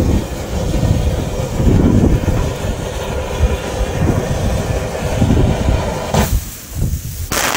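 Funke Geysir Kaliber C firework fountain burning with a continuous rushing, heavily buffeted by wind on the microphone. About six seconds in the fountain switches to a louder, sharper hissing spray, growing harsher near the end.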